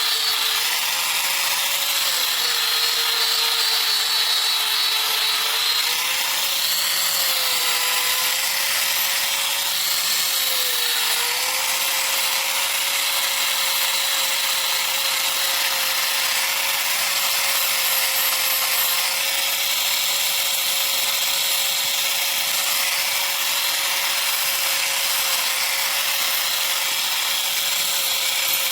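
An electric power tool running continuously with a high, hissing grind, in the work of shaping a steel sickle blade. Its motor note wavers a few times in the first ten seconds or so as it is loaded, then holds steady.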